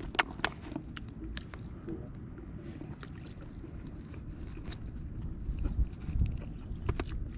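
Fingers picking at a fried fish on a paper towel in a foil tray, making scattered light clicks and crinkles over a steady low outdoor rumble.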